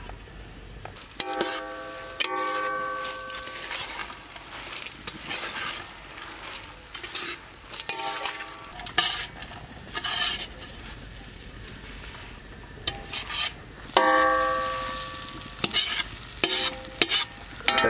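A perforated steel skimmer stirring and scraping sauce-coated fried sweet corn in a large black kadai, over a light sizzle of frying. Several strokes strike the wok and set it ringing, the loudest about fourteen seconds in.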